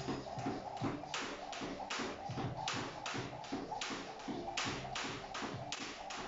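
Jump rope slapping a tiled floor in a steady rhythm, about three times a second, with the light landings of sneakers in an alternate-foot skipping step.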